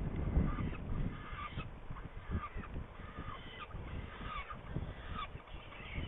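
Saker falcons at the nest giving harsh, nasal calls over and over, roughly one a second, over a low rumble.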